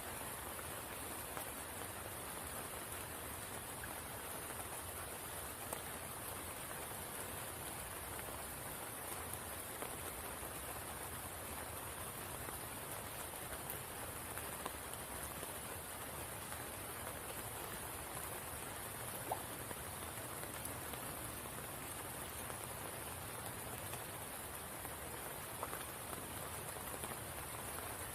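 Steady rain falling at a spring pool, with a few louder single drops now and then.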